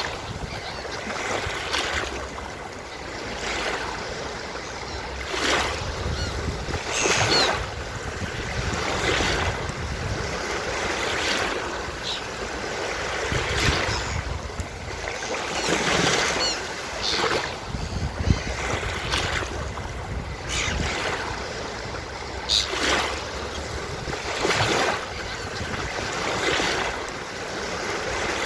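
Ocean surf washing steadily onto a beach, with seagulls calling over it every second or two.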